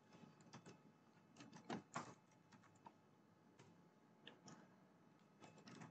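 Faint, irregular clicks of computer keyboard keys being typed, with a few louder keystrokes about two seconds in.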